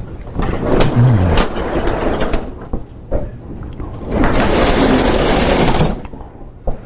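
Sliding chalkboard panels rolling along their tracks as they are pushed up and down: a loud, rough rolling noise in two long stretches, one about a second in and another from about four to six seconds, with a few knocks.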